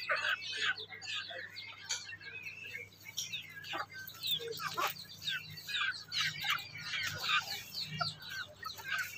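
Domestic chicks peeping, a continuous stream of short high chirps from many birds at once, with occasional clucks from the adult chickens.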